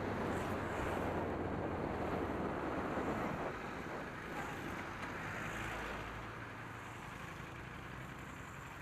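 Wind rushing over the camera microphone on a moving Kawasaki Ninja 400, with the engine running underneath. The rush drops after about three and a half seconds and keeps fading as the bike slows.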